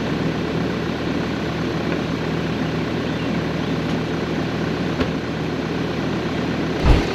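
A vehicle engine running steadily, with a short click about five seconds in and a low thump near the end.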